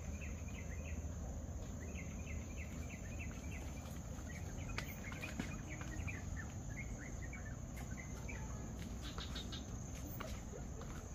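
Outdoor nature ambience: small birds chirping in quick repeated bouts over a steady high-pitched insect drone, with a low rumble underneath.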